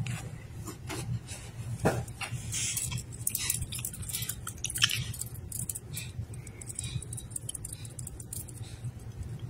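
A hand rubbing a dog's head fur, giving irregular rustling and crackling clicks over a steady low hum.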